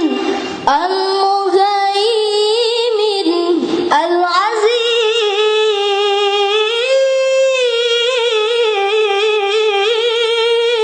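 A child's voice reciting the Quran in the melodic tilawah style, drawing out long ornamented notes with wavering pitch, with short breaths about a second in and again near four seconds.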